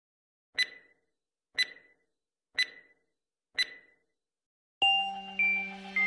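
Countdown sound effect: four short electronic beeps, one a second. About five seconds in, a sudden held musical chord starts the intro music.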